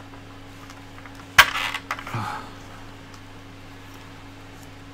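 A single sharp plastic click about a second and a half in, as a small printed part is pressed onto the end of a steel axle rod in a plastic spool holder, followed by a brief rustle of handling. A steady low hum underneath.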